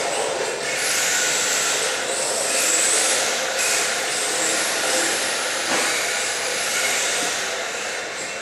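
Electric RC drift cars running on the track: a steady hiss of tyres sliding, with high motor whines that shift in pitch.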